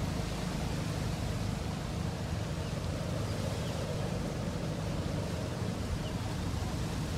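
Steady low rumble of a running motor, even throughout.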